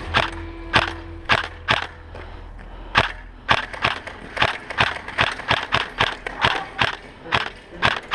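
Footsteps crunching on gritty asphalt. They come at a walking pace of about two steps a second and quicken to about three a second from around three and a half seconds in.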